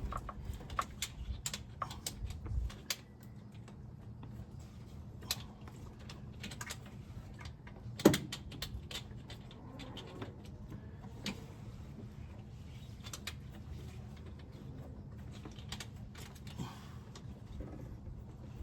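Hand tools clicking and clinking against metal during engine work, with one loud clank about eight seconds in, over a steady low hum.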